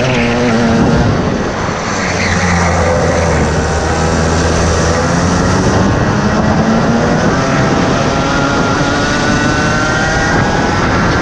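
Two-stroke engine of a DMAX racing kart heard on board, its note falling as the kart slows through a tight corner in the first second or two, holding low for a few seconds, then rising steadily from about halfway as it accelerates down the straight.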